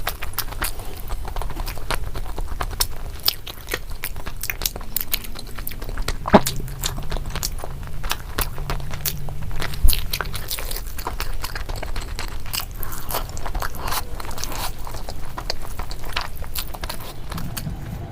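Close-up eating: a person biting and chewing crisp food, a dense run of sharp crunches and clicks, with two louder crunches about six and ten seconds in, over a low steady hum.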